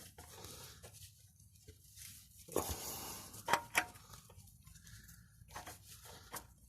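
Light handling noises from working on the car: a brief rustle about two and a half seconds in, then a few sharp clicks and taps.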